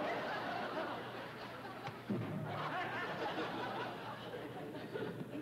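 Studio audience laughing, in two waves, the second rising about two seconds in.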